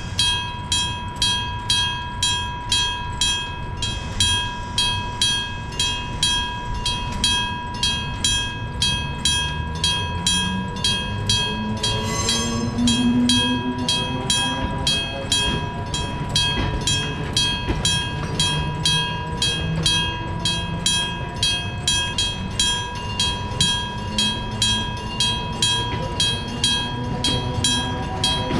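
Japanese electric-bell level-crossing bell ringing steadily, struck about twice a second with a lingering ring. A train with nose-suspended traction motors runs past, its motor whine rising in pitch twice: about a third of the way in and again near the end.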